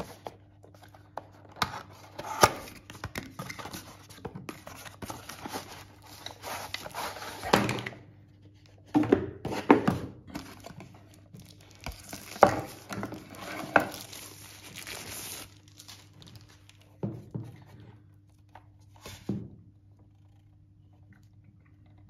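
Unboxing a power strip: rustling, crinkling and tearing of the cardboard box and the strip's wrapping sleeve, with scattered knocks as the box and strip are handled on the table, dying down to a few single knocks near the end.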